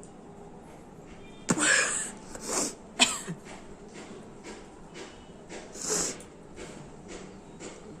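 A woman stifling a yawn with her mouth held shut: a sudden breathy rush of air about a second and a half in, a short falling moan around three seconds, and another breathy rush near six seconds.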